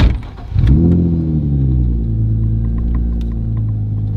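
Nissan 350Z's 3.5-litre V6 starting up, heard from inside the cabin through its Tomei titanium cat-back exhaust: a short loud thump at the very start, then the engine catches about half a second in, flares up and settles down to a steady idle within a couple of seconds.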